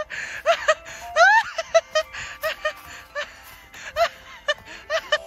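Light, playful background music of short plucked notes with quick sliding notes.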